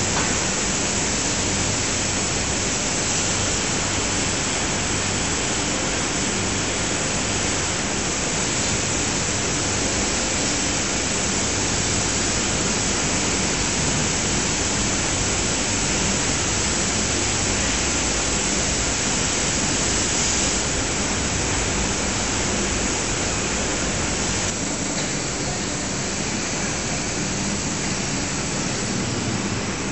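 Steady machinery noise in a forge shop: an even hiss with a low hum underneath, and no hammer blows. It eases slightly near the end.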